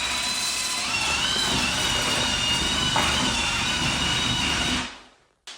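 A motor running steadily with a high whine, dying away about five seconds in, followed by a single sharp click.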